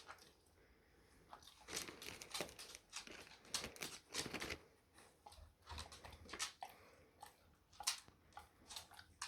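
A dog chewing a meatball: quiet, irregular wet crunches and smacks of its jaws.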